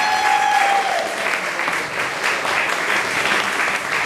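Theatre audience applauding steadily, with one long, held high note from someone in the crowd over the first second.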